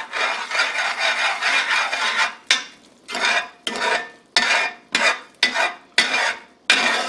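Metal flat-tipped spoon scraping the bottom and sides of a cast-aluminum pot while stirring thick tomato gravy, scraping off tomato that has started to stick. The scraping is continuous at first; from about two and a half seconds in it comes in separate strokes, about two a second, each starting sharply.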